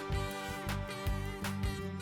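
Instrumental music with a pulsing bass line under a pitched melody.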